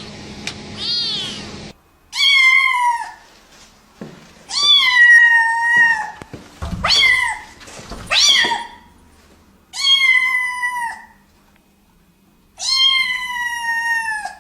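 Cats yowling: a short stretch of wavering calls over background noise at the start, then about six long, high meows, each falling slightly in pitch and then held, with pauses between them.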